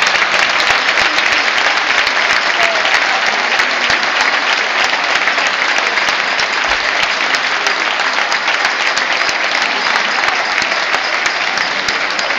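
Audience applauding: dense, steady clapping that tapers a little near the end.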